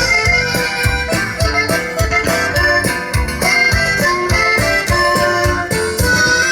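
A band playing a tune live, with drums keeping a steady beat under a reedy melody line.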